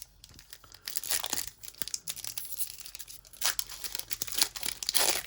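A trading-card pack's plastic-foil wrapper being torn open and crinkled, in a run of crackly rustles starting about a second in, with louder spells later on.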